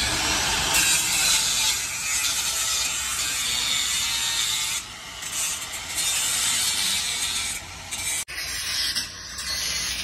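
Angle grinder cutting into the steel wire mesh and frame of a cage door: a harsh, high-pitched grinding hiss that starts abruptly and eases off briefly about five seconds in and again near the eight-second mark.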